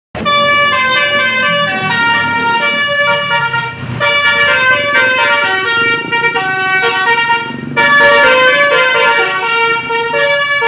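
Bus basuri horn, a set of musical air horns on a bus, playing a fast multi-note tune, the notes stepping up and down in quick succession. It starts suddenly and breaks off briefly twice.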